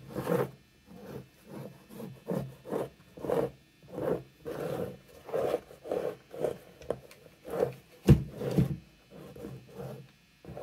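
Hand squeegee scraped in quick repeated strokes over wet gesso on a canvas, a rubbing scrape about twice a second, with one sharper knock about eight seconds in.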